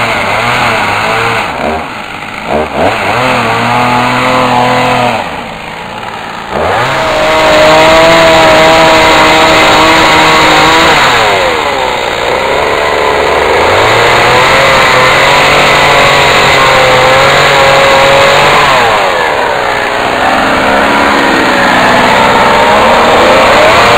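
Two-stroke chainsaw running at high revs while cutting into a squared log. It drops back toward idle a few times and revs up again.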